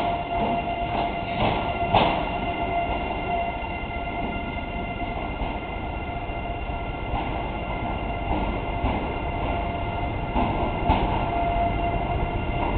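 Renfe Class 130 (Talgo) Alvia trainset pulling away along the station track: steady running noise with a high whine, broken by a few sharp knocks of wheels over the track, the loudest about two seconds in.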